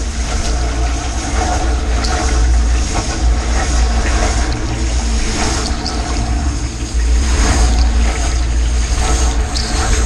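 Portable dishwasher running its wash cycle, heard from inside the tub: water spraying and splashing over the racks, with surges of spray every second or two, over the machine's steady low hum.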